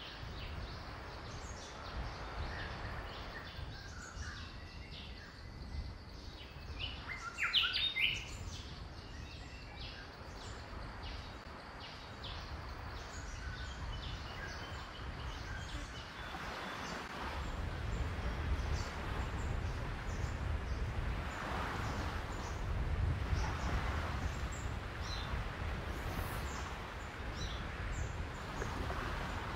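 Outdoor ambience: a steady background hiss with scattered bird chirps, the loudest cluster about eight seconds in. From about seventeen seconds a low rumble joins and stays.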